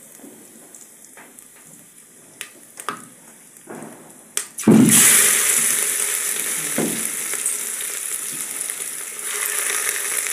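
Hot oil in a pressure cooker, quiet apart from a few light clicks, until ginger-garlic paste goes in about halfway through and it bursts into a loud sizzle. It keeps frying steadily and swells again near the end.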